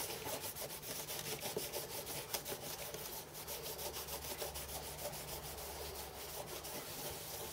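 An aluminium block being hand-rubbed with an abrasive pad in quick back-and-forth scrubbing strokes, deburring freshly drilled metal.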